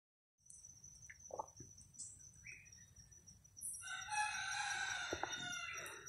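A rooster crows once, a long call of about two seconds in the second half, over a steady high-pitched whine. A few short bird chirps come in the first half.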